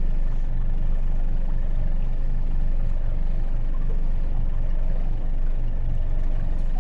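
Outboard kicker motor running steadily at trolling speed, a low even drone.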